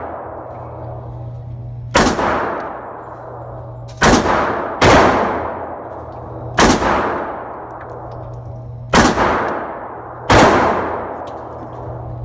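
Glock 42 pistol in .380 ACP fired six times at a slow, uneven pace, one to two and a half seconds apart. Each sharp shot is followed by a long echoing decay in the indoor range lane, over a steady low hum.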